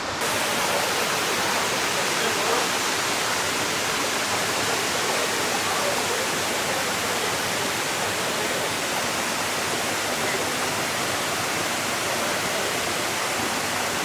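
Steady rush of water pouring over a waterfall, an even unbroken roar with no change in level.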